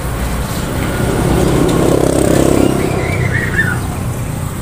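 A motor vehicle engine running steadily, swelling louder for about two seconds in the middle. A short wavering high tone comes near the peak.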